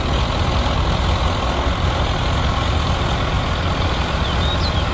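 Diesel engines of two LiuGong single-drum road rollers running steadily, with a continuous low rumble.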